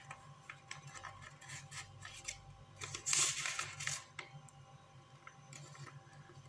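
Banknotes rustling and crinkling as they are handled and fanned out, with scattered small rustles and a louder burst about three seconds in.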